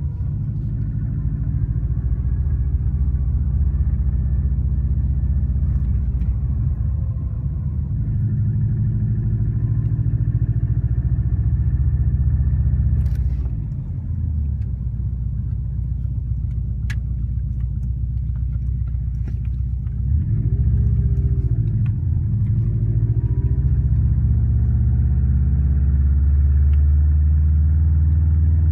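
Turbocharged EJ205 flat-four of a 2004 Subaru WRX running, its revs dipping, briefly rising and falling, then holding higher near the end. The noise under it, first suspected as piston slap, came from an exhaust leak at a cracked up-pipe flange.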